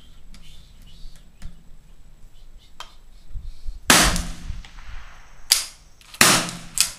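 Four gunshots, the first the loudest, then three more over the next three seconds, each followed by a short ringing echo. A few faint clicks come before them.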